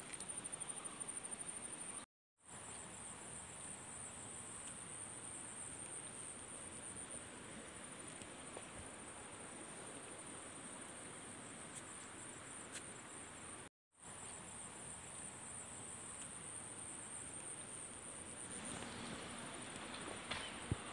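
Insects trilling steadily in a faint high-pitched chorus, pulsing rapidly for the first couple of seconds, over a soft outdoor hush. The sound cuts out briefly twice, and a few faint clicks come near the end.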